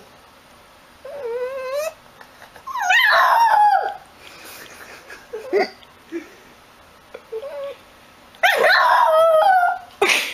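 A Shiba Inu howling and whining in calls whose pitch wavers up and down. There is a short rising call about a second in, a long loud one around three seconds, a few small whimpers, and another long loud call near the end.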